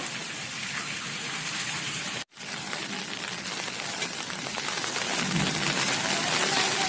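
Heavy monsoon rain falling steadily on flooded ground, an even, dense hiss. The sound cuts out for a moment about two seconds in.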